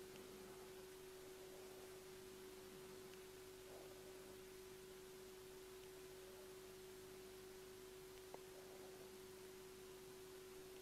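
Near silence: quiet room tone with a faint steady hum held at one pitch, and a single faint click about eight seconds in.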